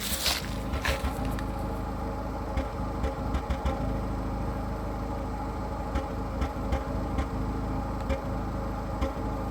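Skoda Fabia 1.4 16V four-cylinder petrol engine idling roughly, its steady note broken by irregular short coughs every second or so. These are the shakes of a misfire, traced to a faulty ignition coil on cylinder 1.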